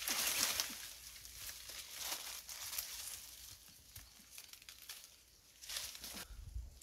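Dry leaves and branches rustling and crackling as a person pushes through brush and pulls at a tree's leafy branches, loudest in the first second and again near the end.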